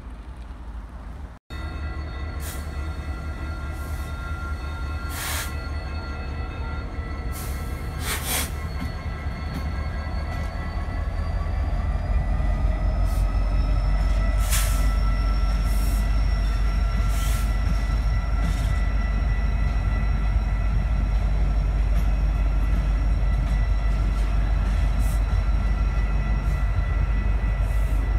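CN freight stack train rolling past at close range, led by EMD SD70ACE diesel locomotives. A heavy low rumble gets louder about twelve seconds in as the locomotives come by, then holds as the cars pass. Several high steady squealing tones, one gliding up in pitch, and scattered sharp clanks ride over the rumble.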